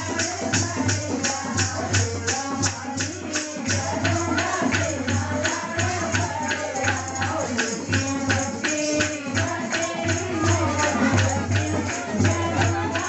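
Devotional kirtan song: a woman singing a bhajan through a microphone over a quick, steady hand-percussion beat with jingling tambourine-like strokes.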